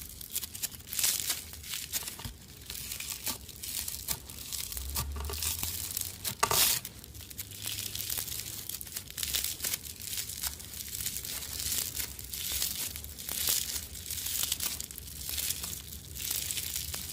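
Slime being kneaded and stretched by hand, making an irregular crackling, crinkling sound, with one louder snap about six and a half seconds in.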